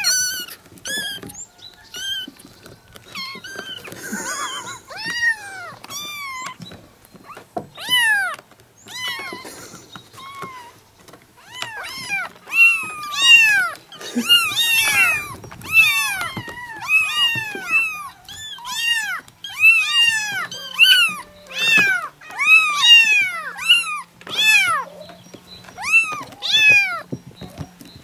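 A litter of young kittens meowing, short high-pitched calls that each rise and then fall in pitch. The calls are spaced out at first; from about twelve seconds in, several kittens call over one another almost without pause.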